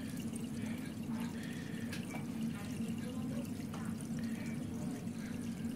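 Aquarium water trickling and dripping, with small splashes and clicks, over a steady low hum.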